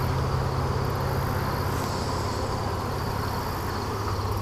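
Steady, unbroken buzzing hum of a mass of honey bees on and around a frame lifted from an open hive.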